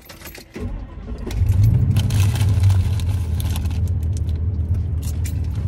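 A 2001 Ford E-350 van's engine starting, with keys jangling at the ignition, then settling into a steady low idle.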